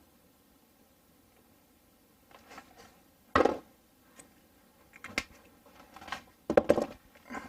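Wooden cabinet door, hinges and tools being handled: a run of short, irregular knocks, taps and scrapes, the loudest about three and a half seconds in and a cluster of them near the end.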